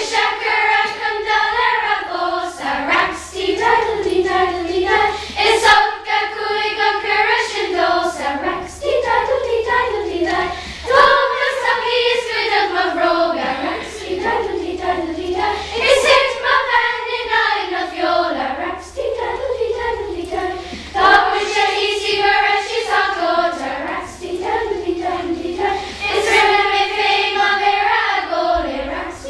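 Children's school choir singing a melody together, with long held notes that rise and fall.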